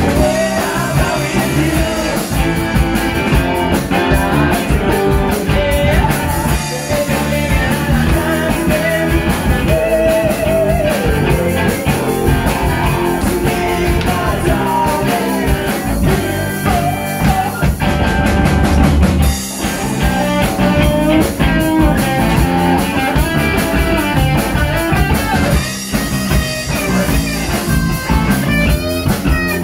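Live rock band playing through amplifiers: two electric guitars, electric bass and drum kit, with lead vocals.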